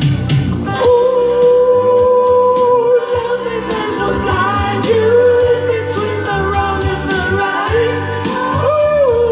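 A woman singing long held notes into a microphone over instrumental backing music, her voice amplified through a PA, with a slide up in pitch near the end.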